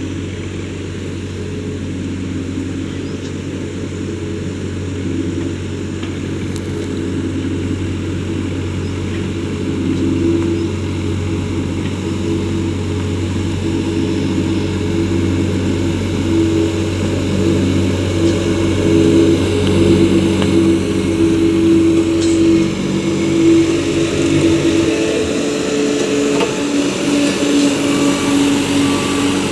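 Vibratory road roller's engine running steadily. It grows louder toward the middle, and its pitch shifts near the end.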